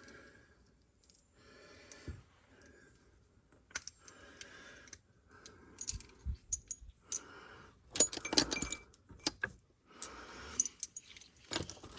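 Metal hand tools clinking and rattling as someone rummages through them, with some rustling in between; the clatter is thickest about eight seconds in.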